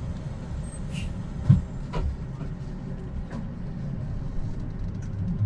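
Inside a BRT bus: a steady low drone of the bus's running drive, with a few short clicks and knocks.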